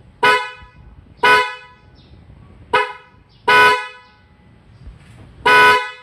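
Pair of Mitsuba snail-shaped car horns (high and low, original equipment from a Honda CR-V Turbo) sounding in five short honks of varying length, the third the briefest.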